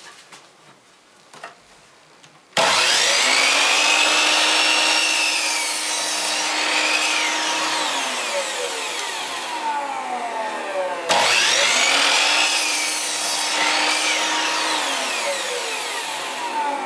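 Electric chop saw starting together with the shop vacuum that switches on with it, sudden and loud about two and a half seconds in, the motor whining up and the blade cutting through a wooden board. It winds down, and the saw starts again for a second cut about eleven seconds in.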